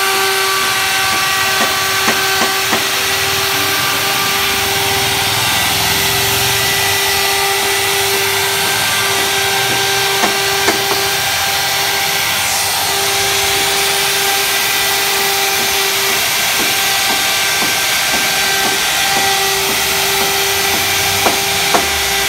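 Electric hand router running steadily as it cuts grooves into wood: a constant high motor whine over the hiss of the bit cutting. Several short sharp knocks, about two seconds in, around ten seconds in and near the end.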